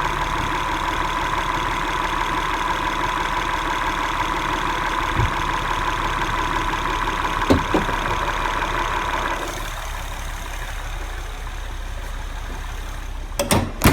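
2011 Acura MDX's 3.7-litre V6 idling, with the knocking and ticking sound the owner is trying to pin down. A steady whine runs under it and stops about two-thirds of the way in; there are a few sharp clicks in the middle and loud clacks right at the end.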